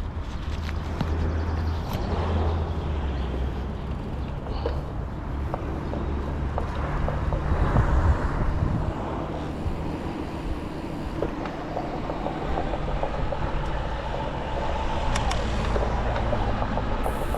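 Canyon Roadlite:ON 7 e-bike with a Fazua Drive 60 mid motor, riding: a steady road rumble with scattered sharp rattling clicks, the rattle the owner traces to the Fazua drive.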